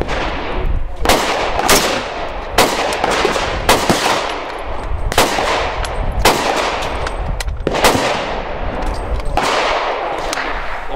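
Rifle fired shot after shot at an unhurried pace, about eight loud cracks spaced roughly a second or so apart, each followed by a short echo.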